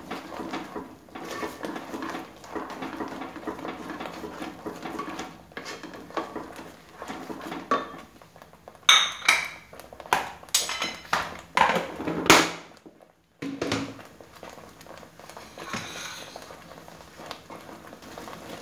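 A wooden spatula stirs and scrapes thick green masala paste in an aluminium pot, then several sharp clinks and knocks of utensils against the pot come about halfway through.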